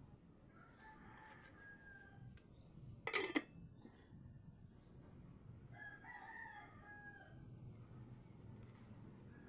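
A rooster crows faintly twice. About three seconds in comes a short, sharp metallic clank, the loudest sound here, as the lid is set on an aluminium cooking pot.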